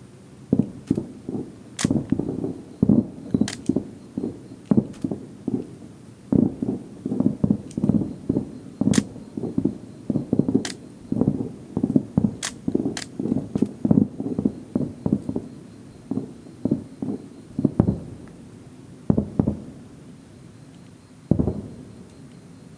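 Aerial fireworks shells bursting in a rapid barrage: dozens of booms in quick succession, some with a sharp crack on top. The barrage thins out after about fifteen seconds, and a last single boom comes near the end.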